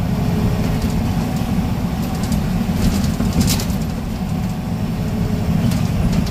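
Scania N94UB bus's five-cylinder diesel engine running, heard from inside the passenger saloon as a steady low rumble. A few brief rattles or clicks come about halfway through.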